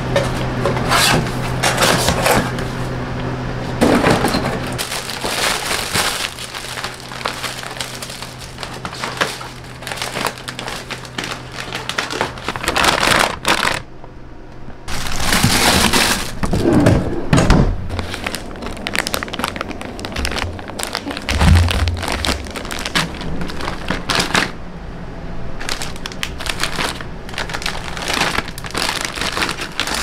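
Scissors cutting through a cardboard fruit box, cardboard creasing and crackling. This is followed by plastic produce bags crinkling and vegetables being handled and packed into a plastic refrigerator crisper drawer.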